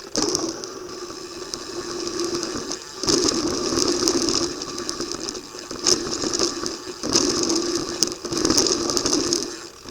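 Downhill mountain bike heard from the rider's helmet camera: the rear hub's freewheel ratchet buzzing and the chain rattling as the bike runs down the course. It comes in loud stretches broken by short dips, with a sharp knock about six seconds in.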